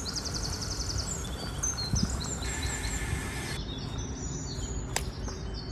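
Prawn curry boiling vigorously in a clay pot, a steady low bubbling. Birds chirp and trill in the background.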